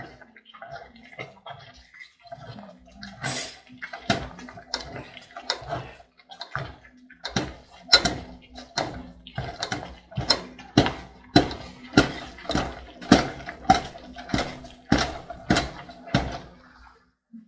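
A long wooden stick working thick amala in an aluminium pot, in repeated strokes. They are loose and uneven at first, then settle about halfway in to a steady beat of roughly one and a half strokes a second.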